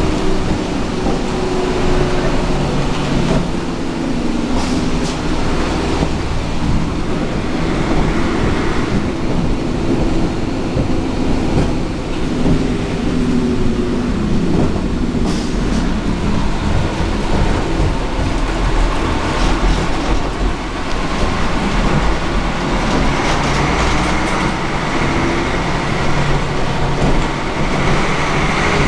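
Fiat 418 AC city bus under way, heard from inside the passenger cabin: its diesel engine runs with the note rising and falling as the revs change. Road noise and short rattles and clicks come from the bodywork throughout.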